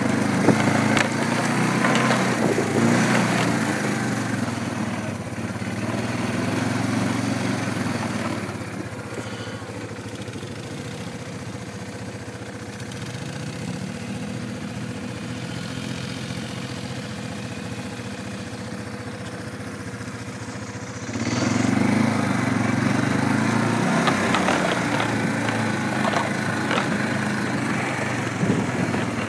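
An engine running steadily, louder at first, dropping back after about eight seconds and rising again about two-thirds of the way through.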